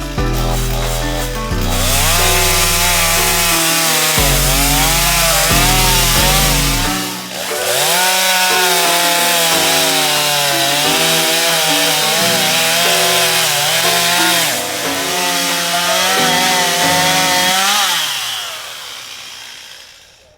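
Chainsaw running and cutting wood, its pitch dipping and rising under load, mixed with background music with a stepping bass line. Both fade out near the end.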